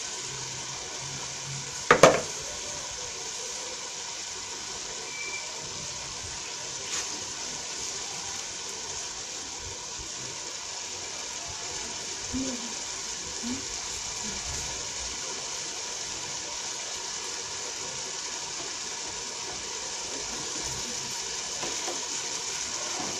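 Pot of sweet potato leaves (matembele) simmering, a steady hiss of boiling and steam. A single sharp knock comes about two seconds in.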